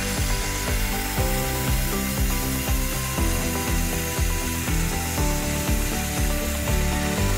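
Air plasma cutter (Hồng Ký HKCUT40) cutting steel with its torch: a steady hiss from the arc and compressed-air jet, with background music under it.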